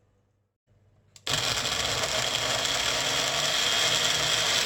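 Electric mixer grinder (mixie) running in short steady bursts, coarsely grinding tomatoes, chillies, garlic and ginger into a dip. A click comes about a second in, the motor starts at once after it, runs steadily for about three and a half seconds, and stops near the end.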